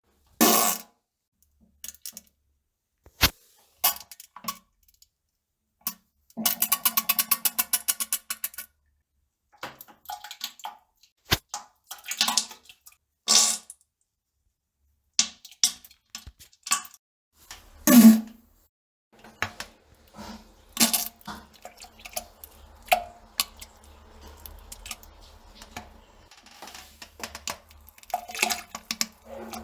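Fart and poop sound effects: a series of short pops and plops, with a longer fart of rapid pulses lasting about two seconds starting about six seconds in. The loudest burst comes about eighteen seconds in.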